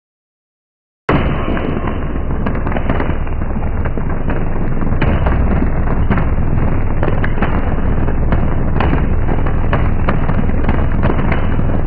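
High-voltage arc fault on a power-line transmission tower. After a second of silence, a loud electrical arc starts suddenly and keeps going as a crackling roar full of sharp pops, over a steady low hum.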